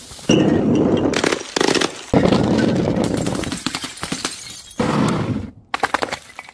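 Glass bottle breaking and being crushed: loud crunching and crackling of glass shards, in four or five separate spells that each start abruptly and trail off.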